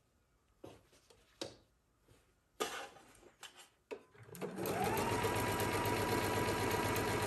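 A few faint clicks, then about four and a half seconds in an electric sewing machine starts up and runs steadily, stitching the seam of a silk scrunchie tube.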